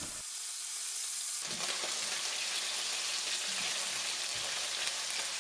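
Beef goulash cubes sizzling steadily as they fry in hot oil and melted sugar in a nonstick wok, stirred with a spatula.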